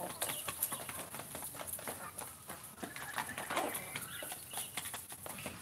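Free-range village chickens and roosters pecking at feed, their beaks tapping quickly and unevenly against the feed bowl and the ground, with a few short clucks in the middle.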